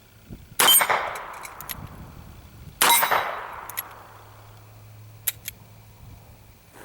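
Two revolver shots from a Ruger GP100 firing .32 S&W Long, a little over two seconds apart. Each shot rings out and dies away over a second or so, and a few faint clicks follow.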